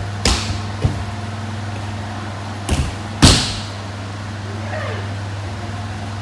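A child thrown in judo practice landing on tatami mats: several sharp thuds, the loudest about three seconds in as the body hits the mat with a breakfall. A steady low hum runs underneath.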